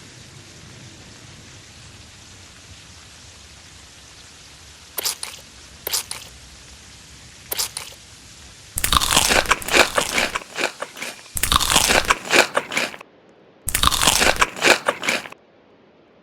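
Close-miked crunchy food being bitten and chewed: three short sharp crunches about halfway in, then three runs of loud, dense crunching chewing in the second half.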